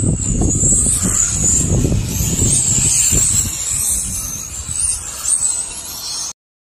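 Radio-controlled cars running on an asphalt track, a high whine wavering up and down in pitch over a low rumble, cutting off suddenly near the end.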